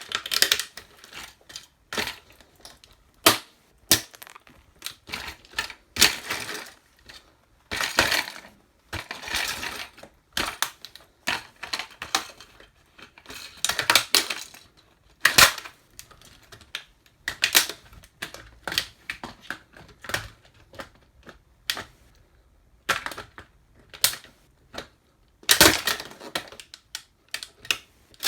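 A toy truck crunching and cracking as it is crushed under boots: irregular crunches and snaps, with a few sharp loud cracks among them.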